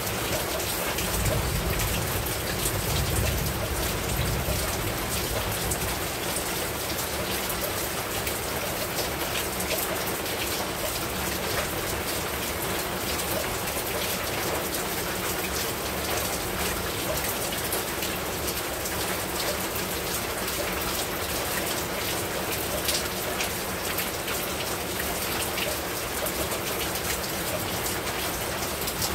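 Steady heavy rain falling, with many distinct drop hits close by. A low rumble sits under it for a few seconds near the start.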